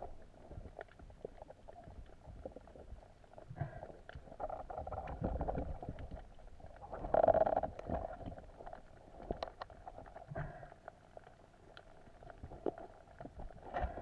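Muffled underwater noise heard through a GoPro's waterproof housing: water movement with scattered clicks and knocks, and a louder burst about seven seconds in.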